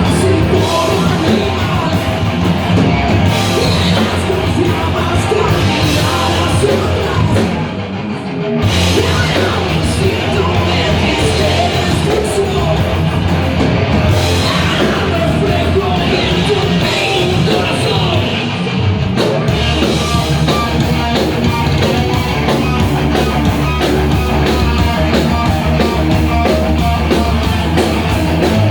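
Live rock band playing loud, heavy rock, the sound dropping back briefly about eight seconds in before the full band comes back in.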